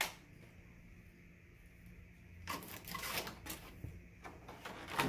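A click at the start, then from about halfway through a quick run of clicks and rattles from a folded metal light-stand tripod being set down and handled.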